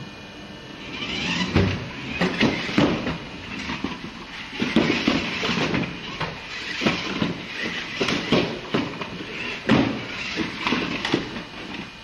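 Remote control car driving in fits and starts over a painting surface. Its small electric motor whirs in spurts, with irregular knocks and scrapes from the car; it starts about a second in.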